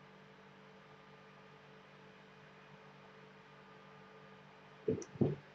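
Faint steady electrical hum over quiet room tone, with two brief soft sounds close together near the end.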